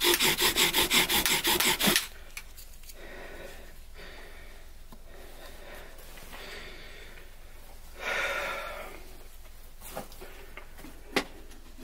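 Bow drill fire-making: a wooden drill spun back and forth by a bow grinds into a wooden hearth board in rapid rasping strokes, about four a second, to raise a glowing ember. The strokes stop about two seconds in. Quiet rustling follows, with a swell about eight seconds in and a single sharp tap near the end.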